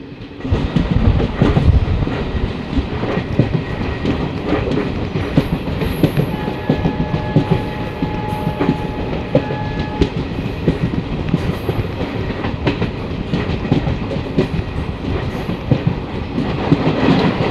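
Passenger train running at speed, heard from an open coach doorway: a loud rumble with a clickety-clack of wheels over the rail joints, starting about half a second in. A faint steady tone sounds for about four seconds midway.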